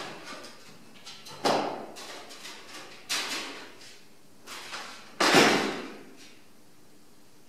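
Three sudden bangs, the last the loudest, each trailing off over about half a second, with fainter knocking and rustling between them.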